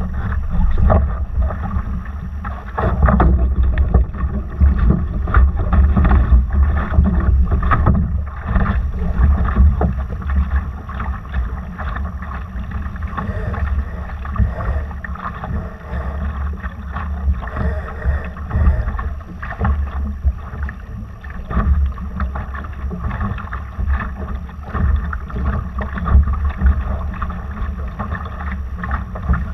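Wind buffeting the microphone over the rush and irregular splashing of water against a Laser dinghy's hull under sail.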